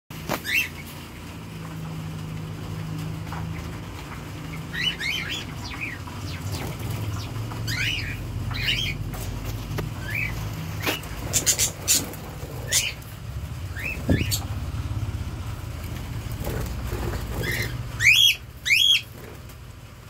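Budgerigars chirping in a breeding cage: short, scattered chirps, with two louder calls near the end, over a steady low hum.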